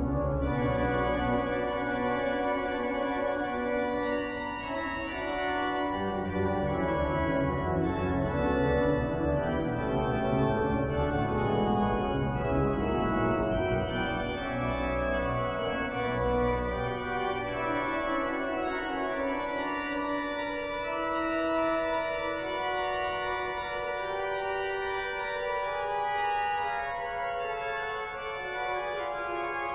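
Pipe organ playing sustained, overlapping chords on the manuals over low pedal notes. The pedal bass drops out about two-thirds of the way through, leaving only the higher manual voices.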